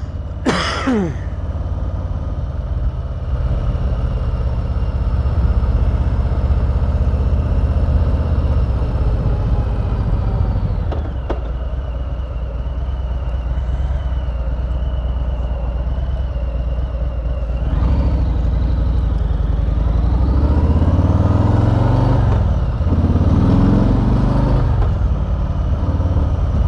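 Harley-Davidson Street Bob's V-twin engine running on the road. Its revs climb and drop three times in the last third as the bike accelerates and shifts up.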